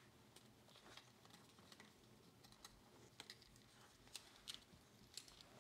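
Faint, irregular small clicks and taps of a plastic battery holder and its wire leads being handled against a circuit board, over quiet room tone.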